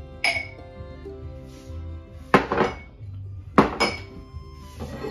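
Drinking glasses clinking against each other and the shelf as they are taken out of a kitchen cabinet: a few sharp clinks with a short glassy ring, the loudest a little past halfway, over background music with a steady beat.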